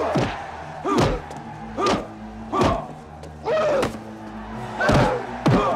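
Movie fight sound effects: a series of heavy punch and body-blow impacts, about one a second, over a low sustained music score.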